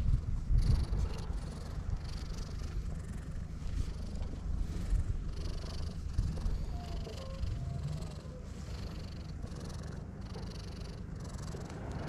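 Brown tabby cat purring steadily while it is being stroked.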